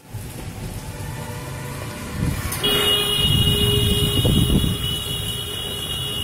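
Storm wind gusting against the microphone with rain hissing, the gusts heaviest in the middle. About two and a half seconds in, a steady high-pitched tone starts and holds.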